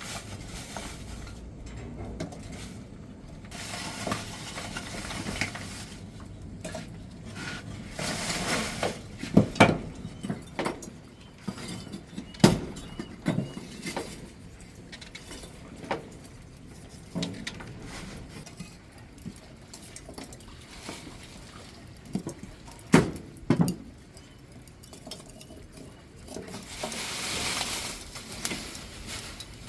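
Irregular knocks and clinks of cooking pots and utensils being handled, with a few short hissing rushes of noise in between.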